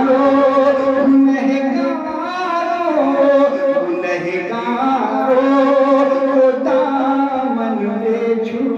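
A man singing a naat, a drawn-out wordless melodic passage of long held notes that waver and bend in pitch.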